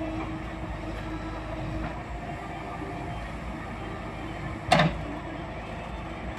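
JCB backhoe loader's diesel engine running steadily as its hydraulic digging arm swings back to the soil bank. A single short, loud clank from the backhoe comes about three-quarters of the way through.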